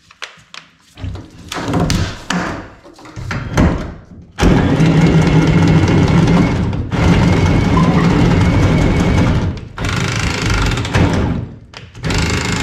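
A handheld cordless power tool runs in bursts, a steady motor whine of about five seconds, a short run, then another start near the end, after a few seconds of knocking and clatter.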